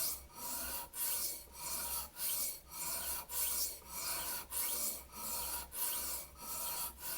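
A knife blade being stroked back and forth on a dry sharpening stone, with no water or oil, in a steady rhythm of about two strokes a second.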